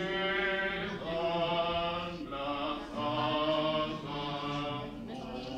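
Voices singing a slow Catholic hymn, with long held notes of about a second each and short breaks between phrases.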